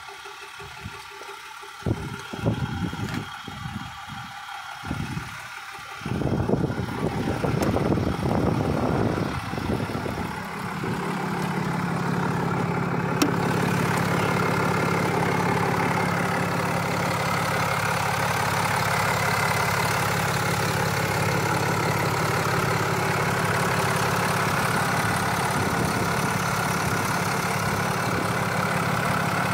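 6.7-litre Cummins turbo-diesel inline-six of a 2019 RAM 5500 idling steadily, heard close with the hood open. The first few seconds hold only scattered knocks and rustles. The engine sound comes up about six seconds in and settles into a steady idle hum.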